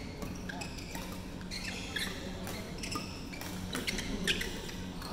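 Badminton rally on an indoor court: shoes squeaking on the court floor and a few sharp racket hits on the shuttlecock, over a steady low hum.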